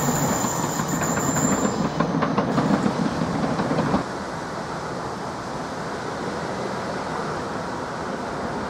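Class 395 high-speed electric train passing close by, running over the rails. About four seconds in, the sound cuts abruptly to a quieter steady noise while a second Class 395 approaches from far off.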